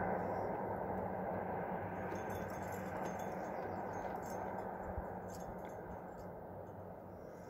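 Faint metallic clinking of climbing gear, cams and carabiners on a trad rack, over a low steady rushing background that slowly fades.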